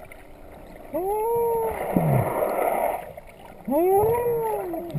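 A swimmer's voice heard underwater through a snorkel, making two rising-and-falling whooping calls, each trailing off into a short low falling tone. Between the calls there is a rush of bubbling water.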